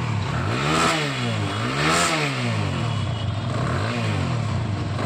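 TVS Apache single-cylinder motorcycle engine idling and revved in quick throttle blips, two strong ones and then a smaller one. It runs without the earlier knock now that the loose starter one-way clutch bolt, which had been striking and cutting the magneto coil, has been fixed.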